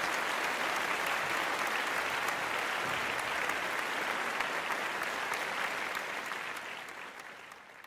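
Audience applauding, the clapping fading away over the last two seconds or so.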